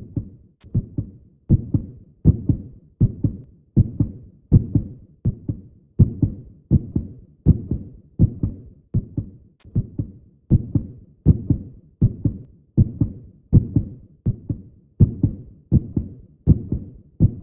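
A heartbeat sound effect on the soundtrack: low, dull double thumps repeating at a steady, slow pace.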